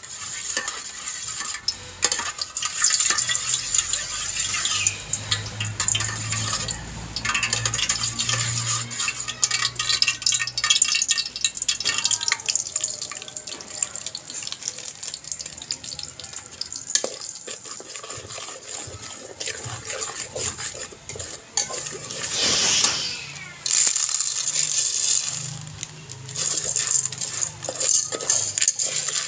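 Slotted metal spatula scraping and clinking against a steel pot, stirring oil and then orange seasoning powder and popcorn kernels, with a louder rush about two-thirds of the way through.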